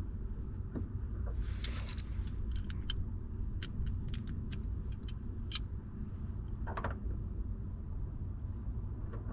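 Scattered light metallic clicks and ticks as a new lift-gate gas strut's end fitting is twisted and worked onto its mounting stud, with a couple of brief rustles, over a steady low rumble.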